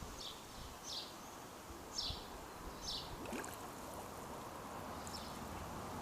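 A bird giving short, high, falling chirps about once a second, over a faint steady outdoor hiss.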